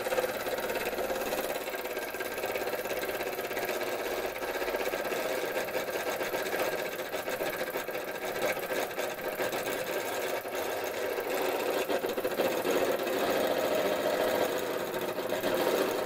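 Linemar J-2734 toy steam engine running steadily on steam: a fast, continuous mechanical rattle from its spinning flywheel and loose tinplate parts, noisy because everything on it is so sloppy.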